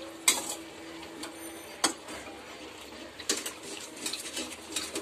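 Metal ladle knocking and scraping against a metal kadai while stirring a thick gravy, with a few sharp clinks spread over the seconds.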